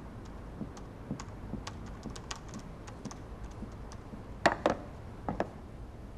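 Typing on a computer keyboard: a run of light key clicks, with a few sharper, louder clicks between about four and a half and five and a half seconds in.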